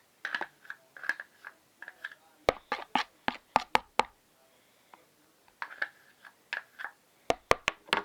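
A utensil clicking and tapping against a bowl in quick clusters of strokes, with brief ringing scrapes, as a slime mixture is stirred.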